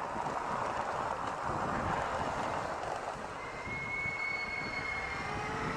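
2006 Yamaha FZ6 motorcycle under way, with wind and tyre noise heaviest at first while crossing cobbles. About three seconds in, its brakes give a steady high squeal lasting about two seconds as the bike slows.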